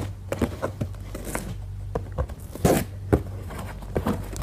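Hands working at a cardboard shipping box to open it: scattered light clicks and scrapes of cardboard and packaging, with a longer scraping rush a little after halfway.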